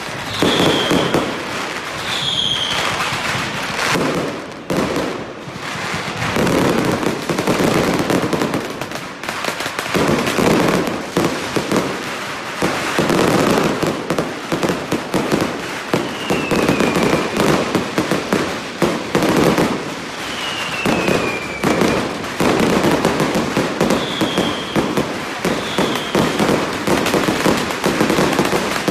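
Fireworks and firecrackers going off in a dense, continuous crackle of bangs. Several short falling whistles sound over it.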